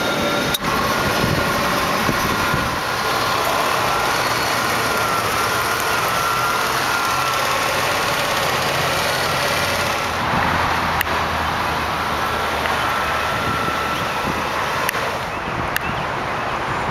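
1998 Cadillac DeVille limousine's 4.6-litre Northstar V8 idling steadily, under a dense background noise, with a few sharp clicks: one early, one in the middle and two near the end.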